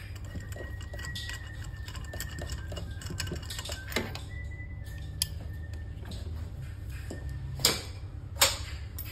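Scattered clicks and knocks of hand tools at work on a scooter, the two loudest near the end, over a steady low hum. A faint thin whistle comes and goes.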